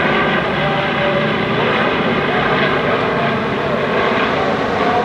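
P-51 Mustang's V-12 Merlin engine at full takeoff power as the fighter lifts off, a loud, steady drone.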